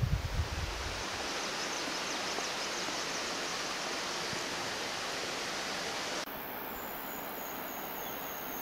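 Steady, even rushing noise outdoors, with low gusty rumble in the first second; about six seconds in it cuts abruptly to a slightly quieter hiss with a faint high whine.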